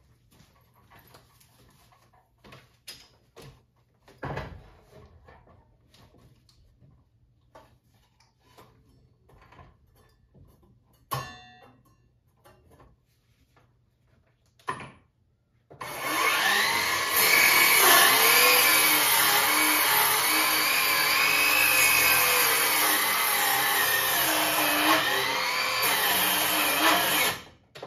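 Cordless circular saw cutting wood overhead along a 2x4 guide. It starts a little past halfway, runs for about twelve seconds with its whine dipping and recovering in pitch as the blade loads, then stops suddenly. Before it, a few knocks and clicks of the tool and board being handled.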